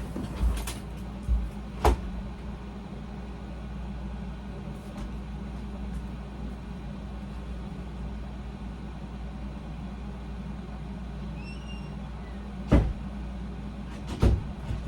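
Steady drone of a room air conditioner running, broken by a few sharp knocks, loudest about two seconds in and near the end.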